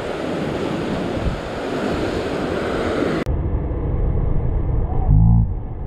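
Ocean surf washing over a rock shoreline, with wind buffeting the microphone. About three seconds in, the high hiss cuts off suddenly, leaving a dull, low wind rumble.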